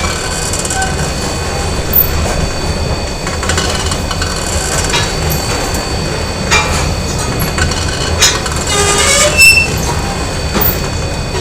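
Factory machinery din: a steady low rumble with a thin constant whine. Over it come irregular metal clanks and, near the end, a brief metallic squeal.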